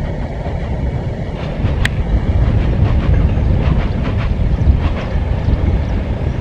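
Passenger train rumbling steadily along the track on a curve, with wind on the microphone. A faint high tone comes and goes twice in the first few seconds, and there is a sharp click about two seconds in.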